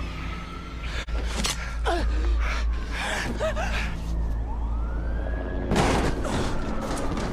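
Film soundtrack: a siren wailing up and down over a low, steady musical drone, with a woman's gasps about two and three seconds in and a heavy thud near six seconds as a thrown body hits the ground.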